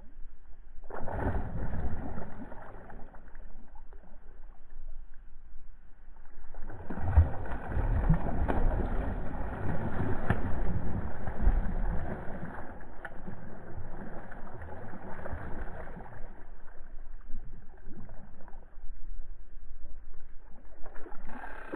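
Hooked pike thrashing at the water's surface while being played in, splashing in irregular bursts: a short burst about a second in, then a longer spell of heavy splashing that eases off after about 16 seconds.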